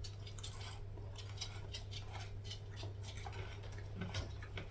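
Light, irregular clicks and taps, several a second, from things being handled in a kitchen, over a steady low hum.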